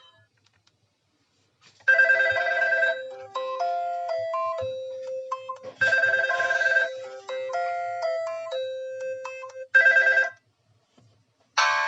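Built-in ringtone of a Fly E155 mobile phone: an electronic melody of chords and stepping notes that starts about two seconds in and plays its phrase twice, ending on a short chord. After a brief pause another tone starts just before the end.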